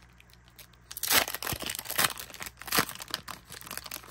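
Foil Pokémon booster-pack wrapper crinkling as it is opened and the cards are pulled out, in a run of loud sharp crinkles from about a second in.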